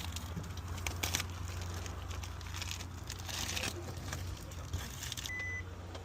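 Crinkling and rustling handling noises with scattered light clicks over a steady low hum, then a short high electronic beep about five seconds in.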